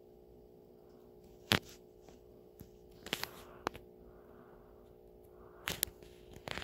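Scattered taps and clicks of fingers on a phone touchscreen, about half a dozen sharp ones with the loudest about a second and a half in, over a faint steady hum.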